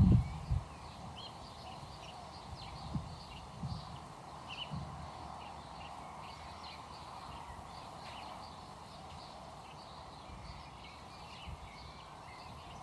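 Birds chirping, many short high calls scattered throughout over a steady background hum, with a few soft low thumps in the first half.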